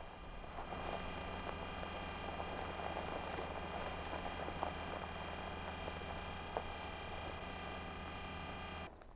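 Sound-effect track of the Curiosity rover driving: a steady motor whir and hum with its wheels crackling and crunching over gravel. It cuts off suddenly shortly before the end.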